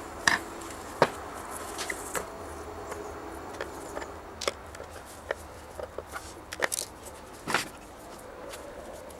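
Scattered clicks, taps and light knocks of tools and parts being handled, over a steady faint background hum. The sharpest knock comes about a second in, and a longer scrape comes near the end.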